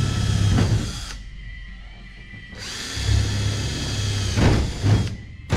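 DeWalt cordless drill driving screws into a race car's deck panel. The motor runs for about a second and stops, then runs again for about two seconds, with a few sharp clicks near the end.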